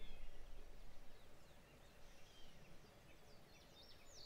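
Faint outdoor ambience with birds chirping: short gliding calls now and then, coming in a quick run of up-and-down sweeps near the end.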